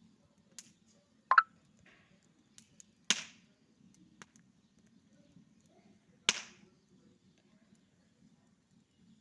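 A few short, sharp knocks or slaps, two louder ones about three seconds apart, over a faint low steady hum.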